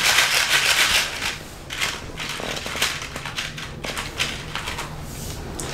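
Crinkling, crackling handling noise: a loud dense burst in the first second, then scattered irregular crackles and clicks.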